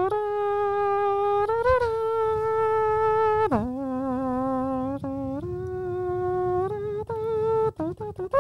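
A man humming a slow melody with closed lips: long held notes of one to two seconds each that step up and down in pitch, then a few shorter notes near the end.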